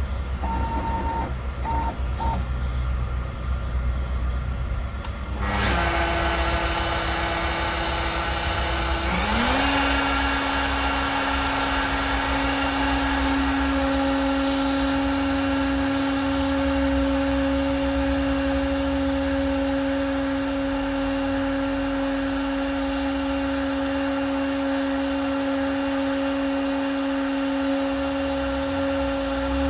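Festool MFK700EQ router, used as a CNC spindle with an ER16 collet chuck, starts up about five seconds in, steps up in pitch around nine seconds and then runs at a steady high whine. Before it starts there is a low rumble and three short beeps.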